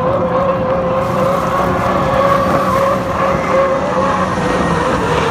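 Several H1 Unlimited hydroplanes racing at full speed, their turbine engines giving a loud, steady, high whine over a rushing noise.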